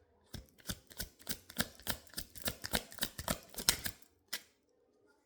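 A rapid run of sharp clicks and taps, about five a second for nearly four seconds, then one last tap: a deck of tarot cards being shuffled and handled.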